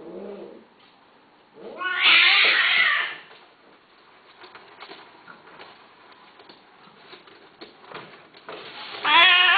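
Cats mating, long-haired Persians, yowling. A falling cry fades out at the very start. A loud yowl rises and holds for about a second and a half, starting about two seconds in. Another loud yowl begins near the end, with faint ticks in the quieter stretch between.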